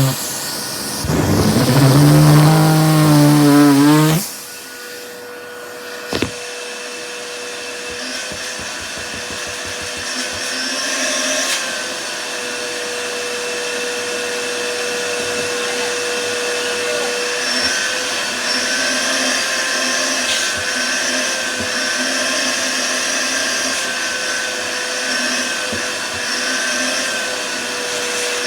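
Vacuum cleaner motor running. For about the first four seconds it is louder, with a wavering pitch. It then drops to a steady whine and hiss, with a sharp click about six seconds in.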